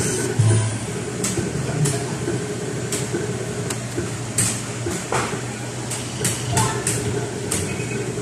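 Busy electronic bingo hall ambience: a steady hum and background chatter, broken by frequent short sharp clicks and clacks.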